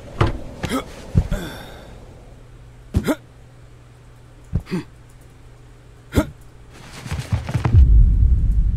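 Animated-film sound effects: a string of short, sharp hits spaced a second or more apart, some sliding down in pitch. A deep, low rumble then swells up near the end and is the loudest part.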